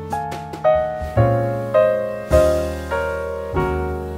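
Background music: a slow piano piece, chords and single notes struck every half-second to a second over low sustained bass notes.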